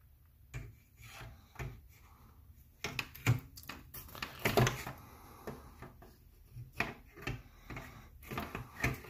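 Irregular knocks, clicks and scraping of hands handling the parts of an Inland DB 100 tabletop bandsaw as it is put back together, the loudest knocks about three to five seconds in; the saw is not running.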